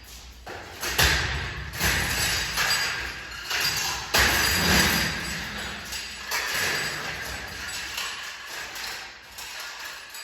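Irregular thumps and knocks, with noisy surges in between.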